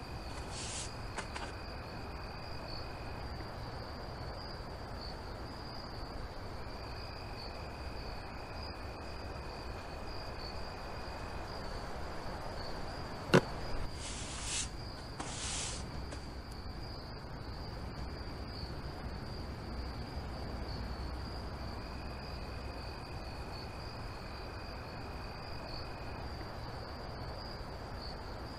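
Crickets trilling steadily over a faint hiss. Near the start, and again just after a sharp click about halfway through, there are short swishes of a broom sweeping the floor.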